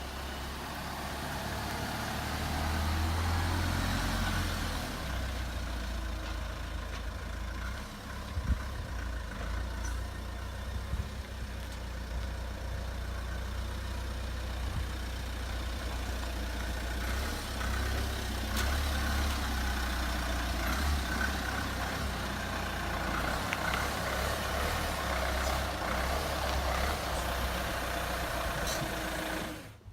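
A vehicle's engine running, a steady low rumble with a few faint clicks.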